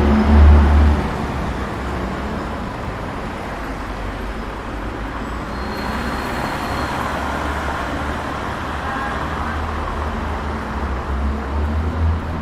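Road traffic on a wet street: a vehicle's low engine rumble close by for about the first second, then a steady hiss, with the rumble returning near the end.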